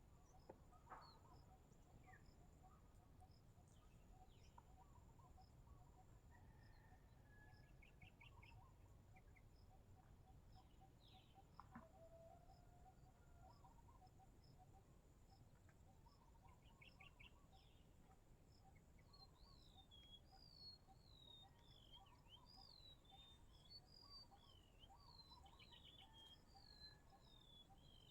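Faint outdoor ambience: an insect chirping at a steady, even pace, with birds calling over it, a string of repeated falling chirps starting about two-thirds of the way through.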